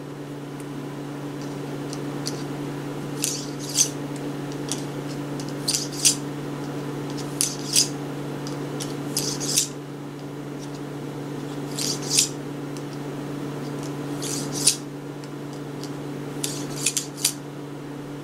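Cleaning rod with a cloth patch being pushed and pulled through the chambers of a .22 Magnum revolver cylinder. It makes short scraping rubs, often two close together, every couple of seconds over a steady low hum.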